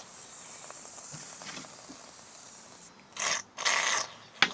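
Two short hissing spurts, like an aerosol shaving-cream can being sprayed, about three seconds in, followed by a sharp click near the end.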